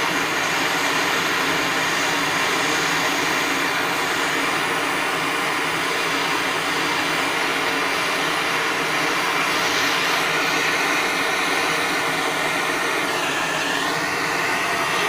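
Gas burner heating a crucible of molten silver solder alloy, a steady rushing noise that does not let up.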